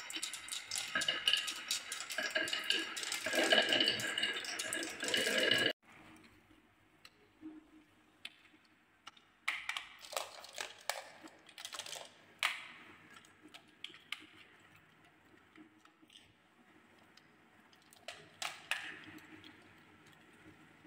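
Many glass marbles rolling down a wooden marble run, a dense clatter of clicks against the wood and one another that cuts off sharply about six seconds in. After that come scattered clicks and short plastic rattles from a toy truck being handled.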